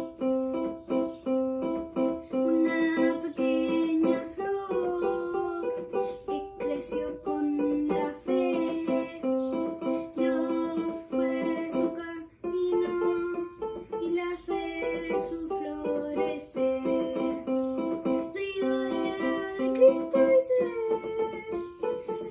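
Portable electronic keyboard playing a simple melody over chords, notes struck one after another in a steady rhythm, with a brief break about twelve seconds in.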